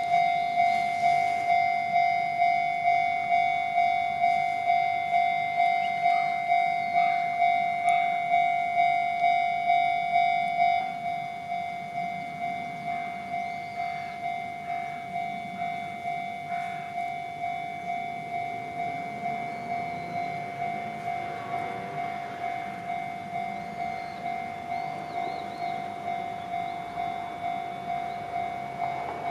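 Japanese railway level-crossing warning bell ringing its electronic clang at about two strokes a second, turning noticeably quieter about eleven seconds in. An approaching train's rumble builds in the second half.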